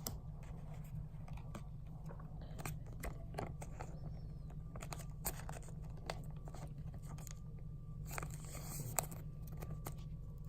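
Foil wrapper of a Pokémon booster pack crinkling and being torn open by hand, a run of small crackles and rustles with a denser rustle about eight seconds in, over a steady low hum.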